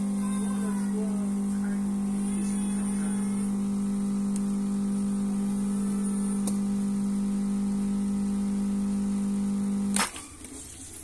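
Pump of a Ferratti Ferro FCM3603 espresso machine running under load during a double-shot extraction, a steady, strong hum. It cuts off about ten seconds in with a sharp burst as the shot ends.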